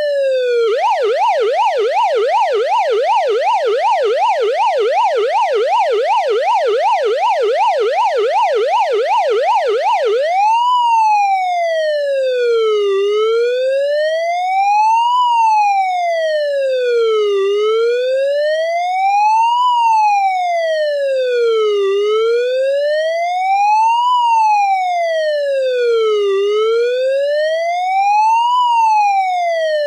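Electronic police car siren: a fast yelp of about three rising-and-falling sweeps a second, switching about ten seconds in to a slow wail that rises and falls every four to five seconds.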